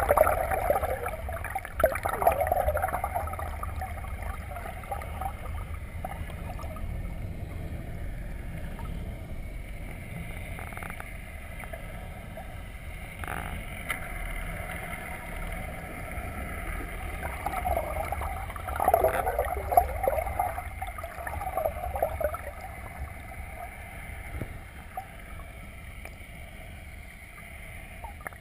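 Muffled water noise picked up by an underwater camera in shallow water: a steady low rumble, with bursts of gurgling near the start and again about two-thirds of the way through, and two faint knocks in between.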